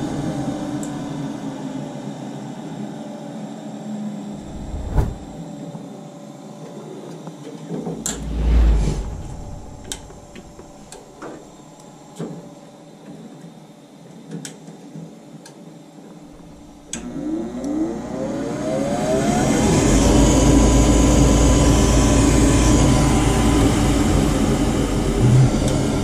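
Goodman gas furnace motor starting with a click and spinning up: a whine rises in pitch for about three seconds, then holds steady, joined by a low rush of air. Earlier, a running sound fades away, with scattered clicks and knocks.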